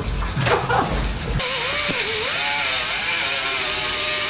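Pneumatic die grinder with a small sanding disc running against fiberglass: a loud rush of air with a whine that wavers in pitch as the disc bears on the work. It starts about a second and a half in and keeps going.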